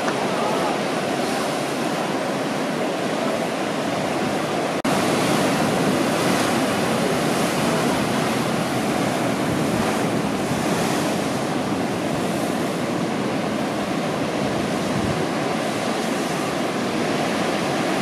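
Ocean surf breaking, a steady rushing wash of waves, broken once by a brief dropout about five seconds in, after which it is a little louder.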